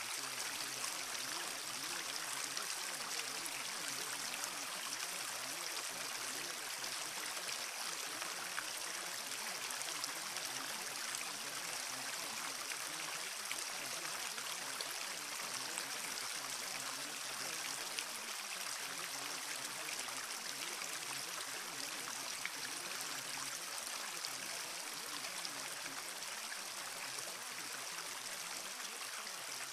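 Steady, even rush of flowing water, like a stream running continuously.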